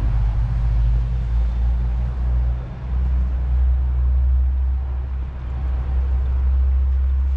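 Tram running along its track: a steady, loud low rumble with a brief dip about two and a half seconds in.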